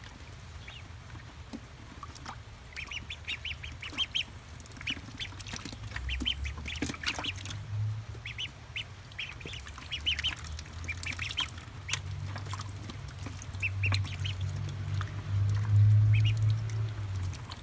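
Ducklings peeping, in quick runs of short high notes, with scattered clicks and a low rumble that swells near the end.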